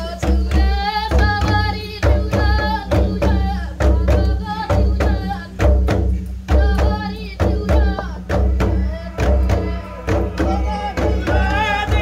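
Voices singing over a quick, steady beat of hand-drum strikes, about two to three strikes a second.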